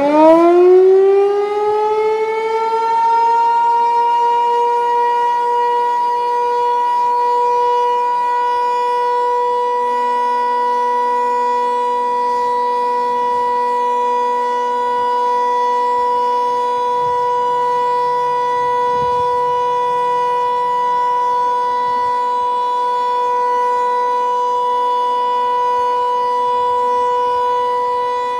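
Federal Signal 508 outdoor warning siren winding up from a low pitch to full speed within the first two seconds, then holding one steady wail. Its rotator is broken, so the horn stays pointed one way and the sound holds an even level without the usual rise and fall of a turning siren.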